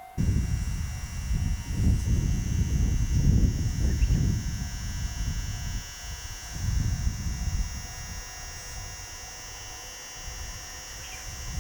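Wind buffeting the microphone in irregular gusts, over a steady high-pitched whine.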